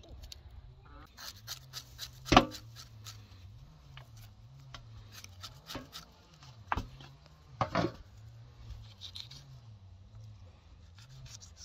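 Knife blade scraping the charred skin off a fire-roasted beef tongue over a metal tray, in short rasping strokes with a few sharp knocks, the loudest about two seconds in and two more between seven and eight seconds.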